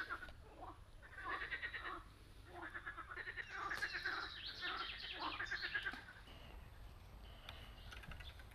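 Frogs calling from the reeds: a string of short, rattling croaks, one after another for about six seconds, then stopping.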